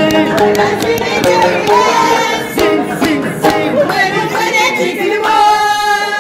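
Singing accompanied by a plucked round skin-bodied folk lute, with sharp rhythmic percussive beats.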